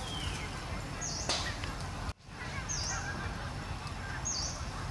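Outdoor woodland ambience: a steady hiss of background noise with a bird's short high call repeating about every second and a half, and a few fainter chirps. The sound drops out briefly a little over two seconds in.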